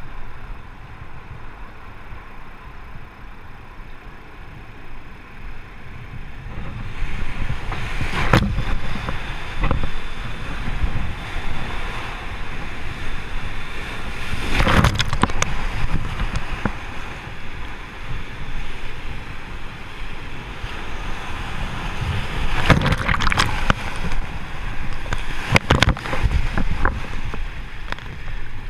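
Whitewater rapid rushing around an inflatable raft, heard close from the raft's bow; the water noise swells about a quarter of the way in, and waves crash into the bow several times.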